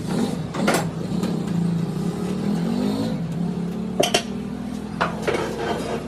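An engine running steadily, its pitch shifting briefly in the middle, with sharp metal clanks about a second in and again around four and five seconds.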